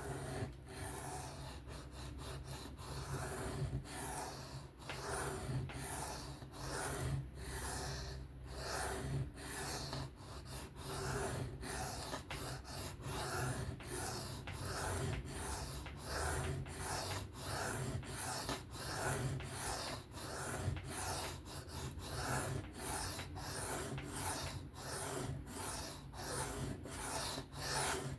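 Steel knife blade being drawn back and forth across a sharpening stone in freehand strokes, an even rasping rhythm of about two strokes a second, raising a burr along the edge.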